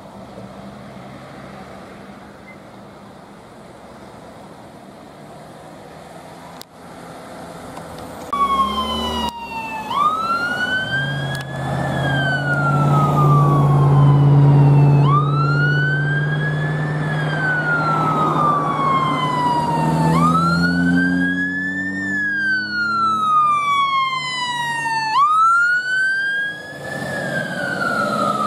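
Fire engine's wail siren, starting about a third of the way in. Each cycle rises quickly, then falls slowly, and repeats about every five seconds over the low note of the truck's engine, which climbs as it pulls away. Before the siren starts there is only a steady vehicle rumble.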